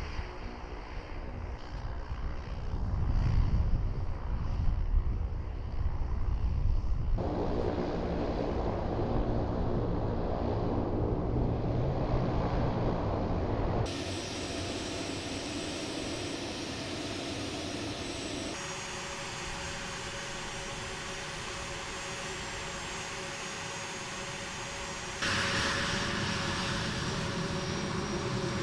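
A-10C Thunderbolt II jets' twin TF34 turbofan engines running, a steady whine over a low rumble. The sound changes abruptly about four times.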